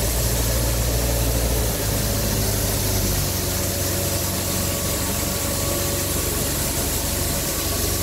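Kramer Allrad wheel loader's diesel engine running steadily while the loader works in a pile of loose barley. It is a little louder for the first two seconds, then settles to an even drone.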